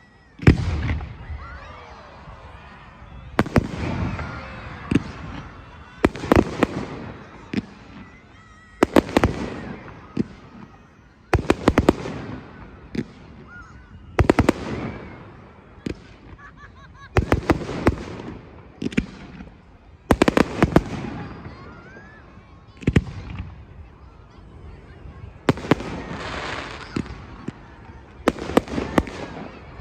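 Aerial fireworks display: shells bursting with sharp bangs, often in doubles, roughly every two to three seconds, each followed by crackling and a fading rumble.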